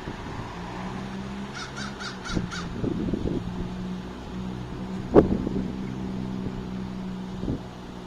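A bird gives a quick run of five harsh, caw-like calls about a second and a half in, over a low steady hum. A single sharp thump comes about five seconds in.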